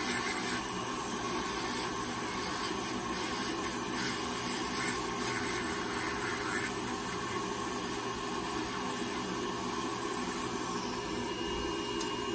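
Podiatry nail drill with dust-extraction vacuum running steadily, its burr grinding down a thick, layered toenail. Near the end the drill's high whine starts to fall as it winds down.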